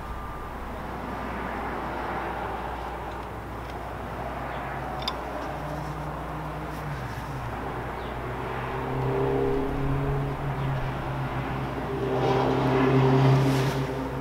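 Engine of a motor vehicle running nearby, a steady low drone that comes in about halfway through and grows louder toward the end, over a constant low outdoor hum.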